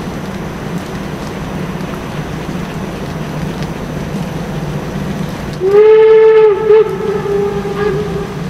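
Steam whistle of a class 52.80 steam locomotive: a steady rushing noise, then about five and a half seconds in a loud blast that slides up slightly and holds, breaks briefly, sounds again for a moment and trails off.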